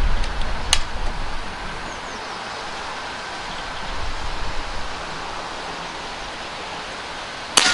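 Kral Puncher NP-02 .177 PCP air rifle: a sharp click of the side lever being worked about a second in, steady wind noise while the shooter aims, then a single loud shot near the end.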